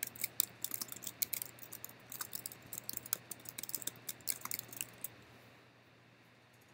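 Typing on a computer keyboard: a quick, uneven run of key clicks that dies away about five seconds in.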